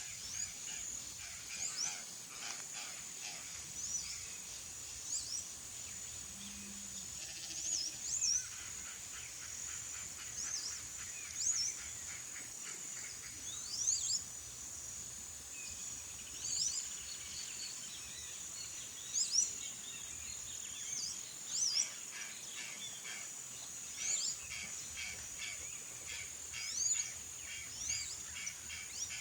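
Wild birds calling outdoors: short high chirps repeat every second or two over a steady high insect buzz, with bouts of rapid chattering pulses in between.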